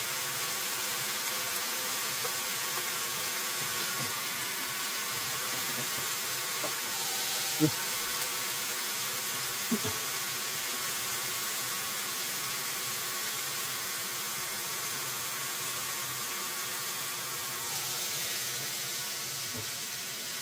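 Chicken strips cooking with a steady hiss and a faint buzzing hum, nearly done. Two short knocks come a little past a third of the way through and again about half way.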